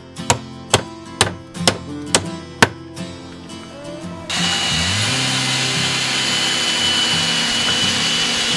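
A hammer striking nails into wooden boards, six blows about two a second, over light background music. A little past halfway, a cordless power tool starts up and runs steadily with a high whine.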